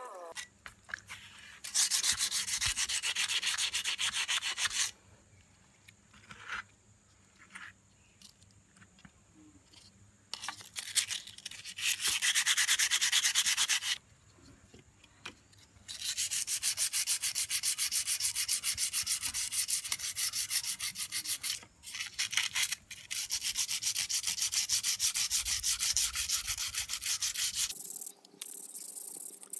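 Brass being sanded by hand, a fast rasping scrape of abrasive on metal. It comes in three spells: a few seconds starting about two seconds in, a short spell around twelve seconds, and a long stretch from about sixteen seconds until shortly before the end, with quiet pauses between.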